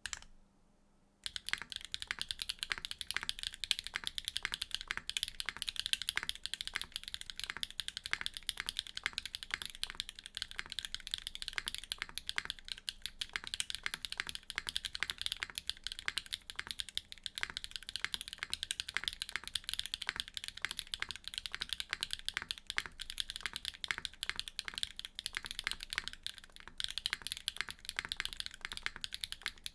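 Neo65 mechanical keyboard with a carbon-fibre plate and HMX Citrus Silver V2 switches, typed on in a fast, continuous stream of keystrokes. The typing starts about a second in, after a single click.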